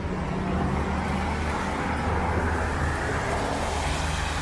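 City street traffic on wet pavement: tyres hissing as a car passes about three seconds in, over a steady low hum.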